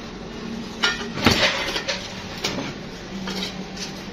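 Several sharp metal knocks and clinks as a finned electric-motor housing and its end cover are handled on a steel workbench, the loudest just over a second in. A steady low hum runs underneath.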